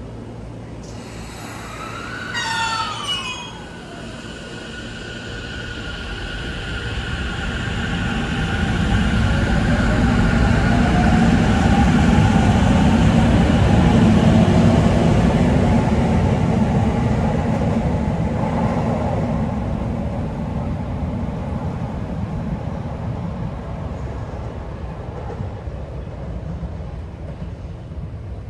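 Sotetsu 10000 series electric commuter train pulling out of a station. A short hiss with a gliding tone comes about two seconds in. Then the traction motors' whine rises in pitch over the rumble of the wheels on the rails. It is loudest about halfway through and fades as the train leaves.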